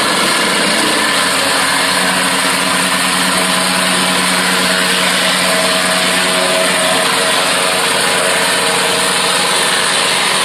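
A 3-ton reversible vibratory plate compactor running steadily, its engine and vibrating plate working over loose crushed stone gravel.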